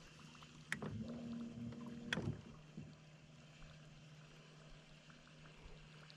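Faint steady hum of an electric trolling motor on a fishing boat. Two sharp knocks come about a second and a half apart, with a slightly higher hum between them.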